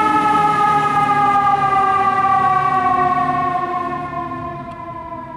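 Fire engine's siren wailing, its pitch sliding slowly downward, then fading from about three seconds in as the engine drives away.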